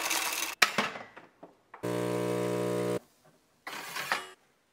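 Automatic bean-to-cup espresso machine: coffee beans rattle into the hopper, a few clicks follow, then the machine's motor hums steadily for about a second. Near the end comes a short hiss of coffee pouring into the cup.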